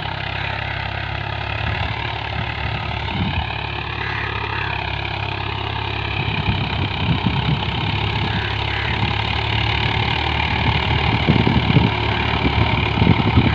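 Swaraj 735 FE tractor's three-cylinder diesel engine running steadily under load while pulling a disc harrow in second high gear. The sound grows louder and more uneven in the second half, with irregular low rumbles.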